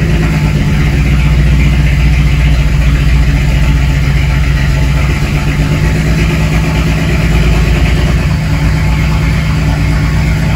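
BMW N54 inline-six engine running steadily just after being started, heard from inside the car. The engine had been logging a cylinder 6 misfire, which the owner traces to a leaking fuel injector.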